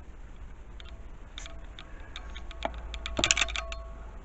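Light clicks and taps from handling the camera as it is moved and zoomed, with a brief burst of rattling clicks about three seconds in, over a steady low hum.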